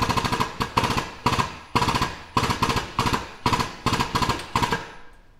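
Frame-straightening machine's pump running in short bursts of rapid clattering, about two bursts a second, as its chain pulls on the car's front frame rail.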